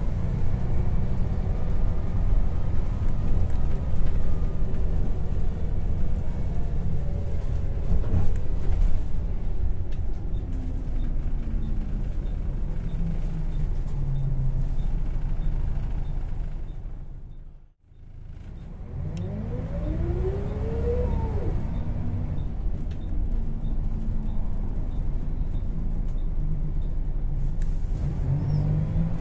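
Interior sound of a Volvo B10BLE bus on the move: its rear-mounted six-cylinder diesel engine and drivetrain running with a deep, steady rumble. About twenty seconds in the sound briefly drops away, then comes back with a rising whine as the bus pulls away and gathers speed.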